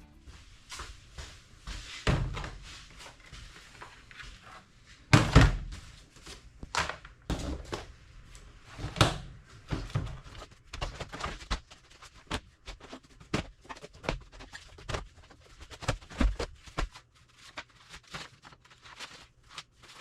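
Irregular knocks, thuds and clatter of objects being handled and set down, the heaviest thuds about five and nine seconds in.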